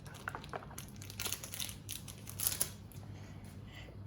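Crinkling and rustling of Pokémon trading-card packs and cards being handled: irregular quick crackles, loudest about two and a half seconds in, thinning out near the end.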